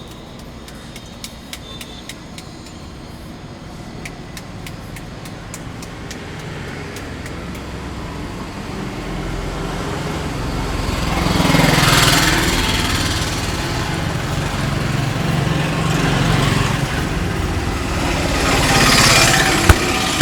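Road traffic: motor vehicles passing close by, two of them swelling and fading away about halfway through and again near the end, over a low engine hum. Faint small clicks in the first few seconds.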